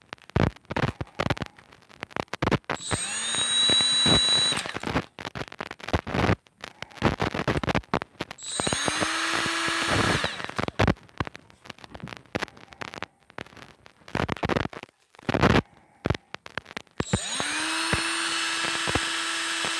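Milwaukee M12 Fuel brushless straight die grinder switched on three times, each time spinning up with a rising whine that settles into a steady high whine. The first two runs last about two seconds before it is switched off; the third starts near the end and keeps running. Between runs there are sharp clicks and knocks from the tool being handled.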